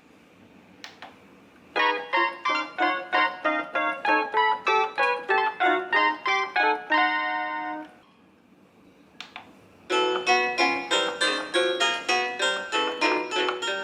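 Yamaha Remie 37-key mini keyboard playing two short melodies in piano-like voices, one clearly separated note at a time, with a pause of about two seconds between them. A short click comes just before each melody.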